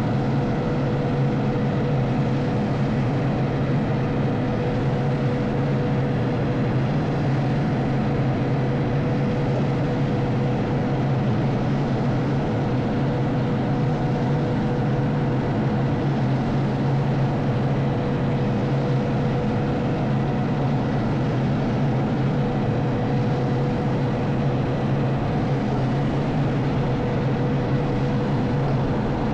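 Concrete mixer truck's diesel engine running steadily, a constant low hum with a faint steady tone above it.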